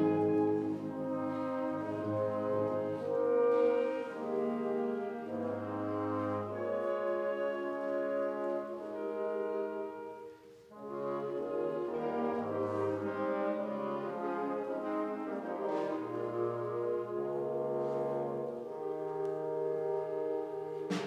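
Concert wind band playing soft, slow, sustained chords in which the brass stands out. The music thins almost to nothing about halfway through, then comes back in.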